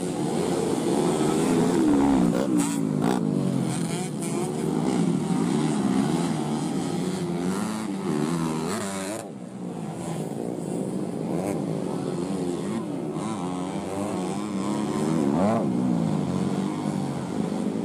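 Dirt bike engines revving hard, their pitch rising and falling over and over as the throttle is worked. They drop away briefly about nine seconds in, then pick up again.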